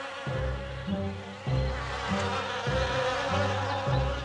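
Cartoon bees buzzing, a busy swarm-like drone, over background music with a low bass note about every half second.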